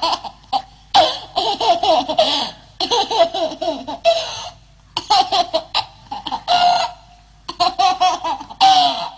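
A baby laughing in rapid, high-pitched bursts: five runs of giggling belly laughs with short breaks between them.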